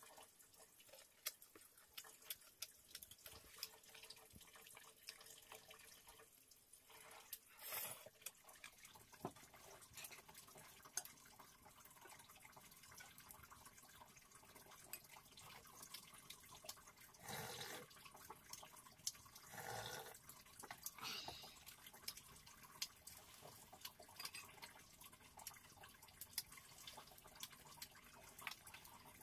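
Faint water dripping, with scattered small drops and a few brief louder splashes.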